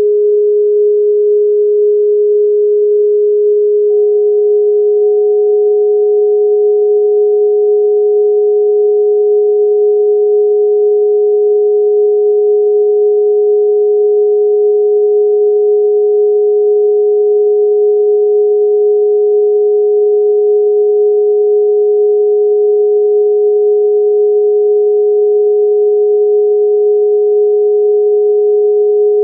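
Synthesized sine-wave 'protection frequency' tone, held steady and unchanging. About four seconds in, a fainter, higher tone joins it and holds as well.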